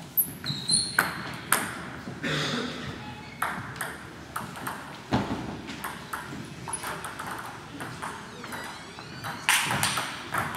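Celluloid table tennis ball clicking sharply on the table and bats in irregular single taps, then quicker back-and-forth hits near the end as a rally gets going. A couple of short high squeaks sound in the first second.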